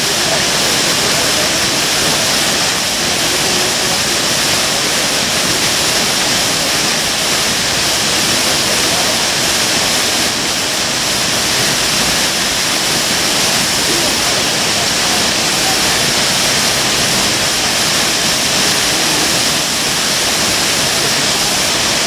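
Minoo Falls, a tall waterfall plunging down a rock face into its pool: a steady, unbroken rush of falling water.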